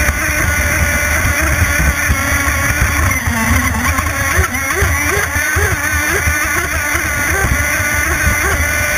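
Two-stroke CMB91RS nitro-methanol engine of a radio-controlled offshore race boat running at high revs under a steady rush of water. Its pitch dips briefly about three seconds in, as the boat banks into a turn, then wavers up and down before settling.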